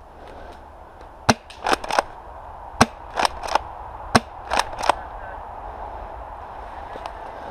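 Spring-powered airsoft gun fired three times, about a second and a half apart. Each sharp crack is followed by two softer clacks.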